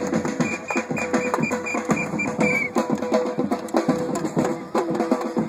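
Upbeat music driven by drums and percussion, with quick, dense hits throughout and a run of short, evenly spaced high notes from about half a second in until nearly three seconds.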